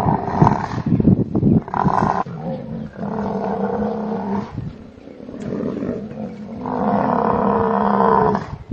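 Buffalo bellowing: a series of drawn-out, pitched roaring calls. The longest call comes near the end, and there is rougher, noisier grunting in the first second or so.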